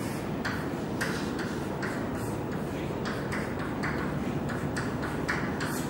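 Chalk writing on a blackboard: short, irregular taps and scrapes, a few each second, over a steady room hum.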